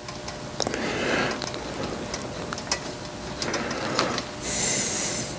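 Small tube cutter being turned around soft copper tubing: scattered light clicks and a few short scraping passes as the cutting wheel scores the tube, the loudest near the end.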